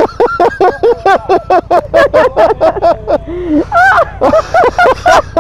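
A person laughing hard in rapid, high-pitched bursts, several a second, with a few longer wheezing rises and falls about four seconds in.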